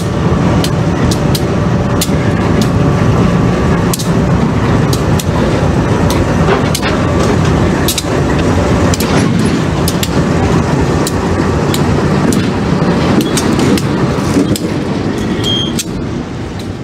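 Providence & Worcester diesel locomotive passing slowly at close range, its engine running steadily, with irregular sharp clicks and clanks from the wheels on the rails. The sound fades over the last second as the locomotive moves on.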